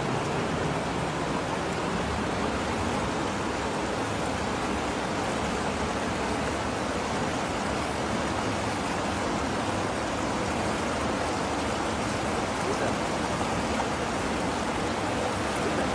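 Steady rushing noise with no distinct events, even and unbroken throughout.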